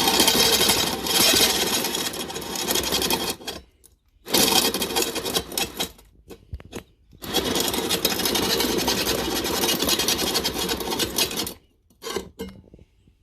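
Electric drill with a small sharpening bit grinding the steel edge of a blunt lawn mower blade, run in three bursts (a long one, a short one, then a longer one) with brief pauses between, and a few short scrapes near the end.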